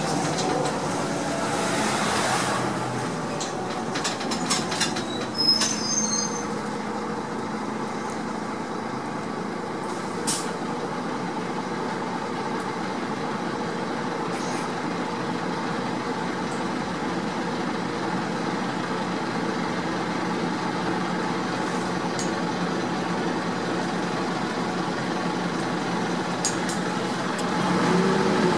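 Inside a Heuliez GX 417 articulated city bus on the move: a steady engine drone under road and cabin noise, with scattered clicks and rattles in the first few seconds. The engine note changes and grows louder near the end.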